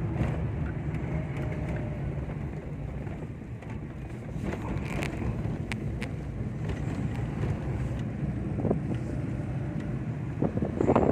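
A vehicle driving, with a steady low engine and road rumble and wind buffeting the microphone; there is a louder burst of noise about ten seconds in.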